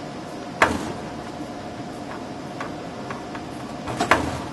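Qualstar XLS tape library robot rehoming its axes: two sharp mechanical clacks, about half a second in and near the end, with a few lighter ticks between, over a steady machine hum.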